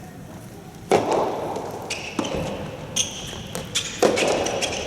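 Soft tennis rally: the hollow rubber ball struck by rackets and bouncing on the court, a string of sharp knocks about a second apart that echo in a large hall.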